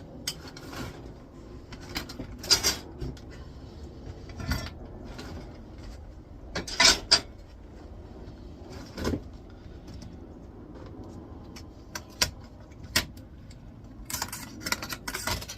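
Intermittent clicks, knocks and light metal clatter as the parts of a flat-screen computer monitor are handled and taken apart, with a quicker run of clicks near the end.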